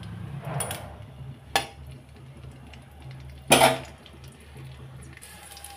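Metal kitchenware knocking against a metal kadhai: a sharp click about a second and a half in, then a louder, longer clatter about three and a half seconds in, over a low steady hum.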